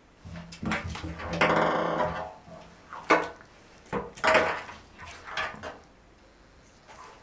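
A ping pong ball rattling and bouncing around an empty bathtub as a cat bats at it. A dense clatter of rolling and tapping fills the first two seconds, then comes a run of separate sharp knocks.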